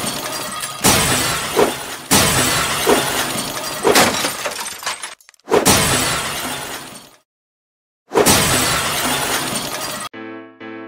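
A string of shattering burst sound effects for an animated logo reveal, four hits that each start sharply and die away, with a short silence before the last. Soft piano music starts near the end.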